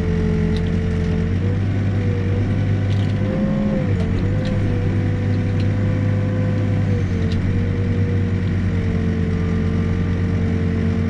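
Backhoe engine running steadily under digging work, with a high hydraulic whine that dips and rises briefly about four seconds in, and a few faint knocks.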